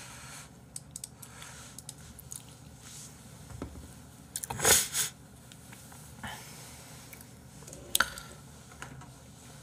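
Faint handling sounds at a desk, with a short breathy rush of air about halfway through and a sharp tap a little before the end.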